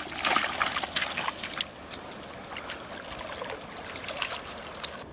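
A hooked fish thrashing at the river surface, splashing water. There is a quick run of splashes, loudest over the first two seconds, then fewer and fainter ones.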